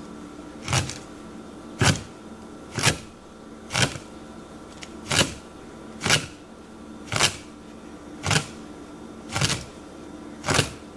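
A large knife chopping down through a skin-on pike conger (hamo) fillet onto a wooden cutting board, about one cut a second, ten in all. These are honekiri bone-cuts, slicing the eel's many small bones down to, but not through, the skin.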